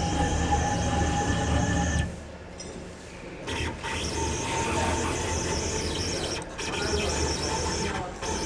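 AccTek AKM6090 CNC router running, its spindle and axis drives giving a steady high whine over dense cutting noise. The sound drops away about two seconds in and picks up again a second and a half later, with two short dips near the end.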